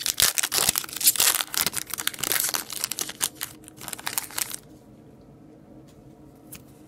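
Foil hockey-card pack being torn open by hand, a dense crinkling and tearing rustle for about four and a half seconds. Then it goes much quieter, with a few faint ticks.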